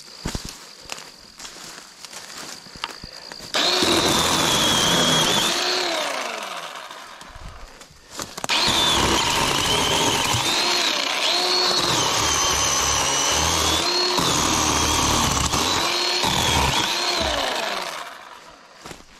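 Battery-powered chainsaw cutting brush. The motor whine rises, dips in pitch each time the chain bites, then recovers. It runs twice: briefly from about four seconds in, then longer from about eight seconds, with a few light knocks before the first cut.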